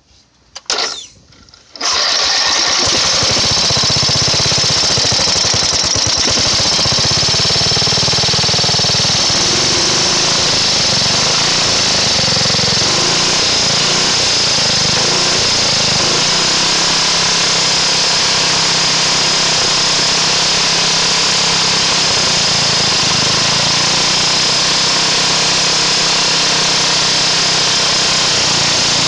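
Briggs and Stratton 12 hp single-cylinder flathead vertical-shaft engine cranking briefly and catching about two seconds in. It then runs steadily at about half throttle while the main mixture screw under the fuel bowl is turned in and out to tune the carburetor, between lean misfiring and rich flooding.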